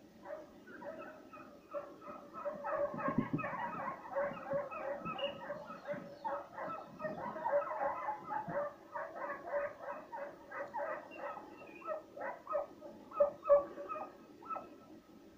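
Hunting tracking dogs baying and yelping on the trail of a hare, short high cries coming several a second almost without a break.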